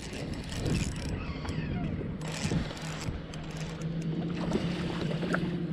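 A small motor on a fishing boat hums steadily, starting about a second and a half in, with scattered knocks and handling noises on the boat over a background of wind and water noise.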